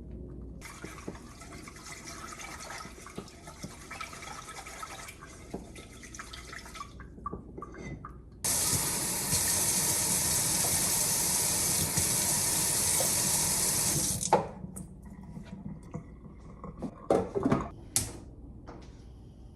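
Kitchen tap running into the sink: a quieter trickle of water for the first several seconds, then the tap running at full flow for about six seconds before it is shut off suddenly. A few short knocks of handling follow near the end.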